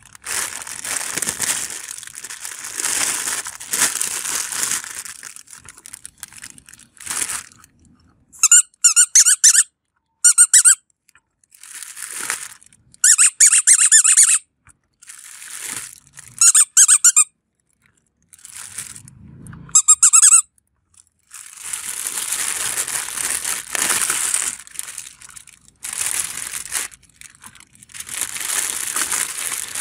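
Clear plastic bag crinkling and rustling as soft rubber spiky balls are pulled out of it. In the middle, four short runs of rapid high squeaks come from the spiky balls being squeezed. The bag rustling then returns near the end.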